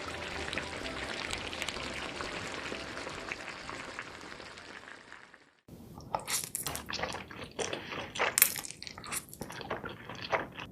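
A steady crackling sizzle fades out about halfway through. After a brief gap come close-miked eating sounds: irregular wet chewing, slurping and crunching of spicy seafood and mushrooms.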